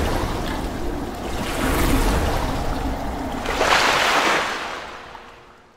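Splashing, rushing water sound effects of an animated logo intro. It comes in surges, the loudest about four seconds in, then fades out near the end.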